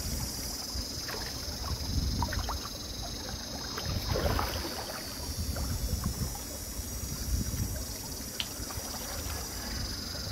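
Wind buffeting the microphone in uneven low gusts over a steady high hiss, with a few faint crackles from a small wood fire.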